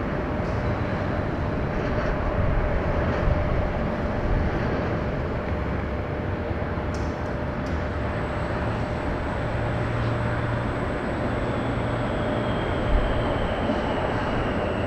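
Distant Boeing 747-8 freighter's GEnx turbofans running on the runway after landing: a steady rumble, with a high whine that slowly falls in pitch over the last few seconds as the engines spool down.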